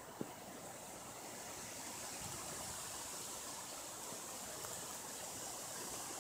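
Steady rushing, hissy outdoor noise that grows slightly louder about two seconds in, with a single soft click just after the start.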